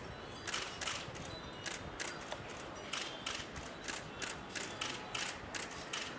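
Several camera shutters clicking irregularly, about two clicks a second, as press photographers shoot a held pose.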